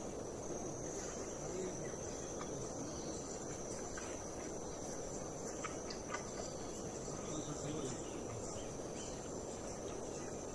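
Steady high-pitched insect chorus, typical of crickets or cicadas in the forest, over a low, even outdoor background noise.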